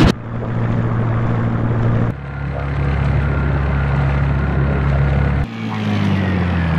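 Motorboat engine sound altered by audio editing, in three abrupt cuts. First comes a steady engine drone, then a slowed-down, deeper drone. Last comes a drone whose pitch slides steadily down, like an engine running out of fuel.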